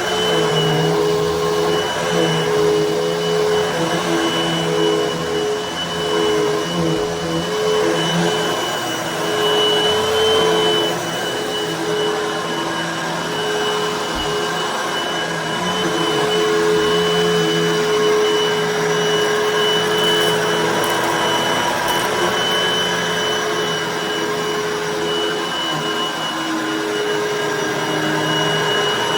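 Hoover vacuum cleaner running on carpet: a steady motor drone with a high whine, its pitch and loudness wavering slightly as it is worked over the carpet.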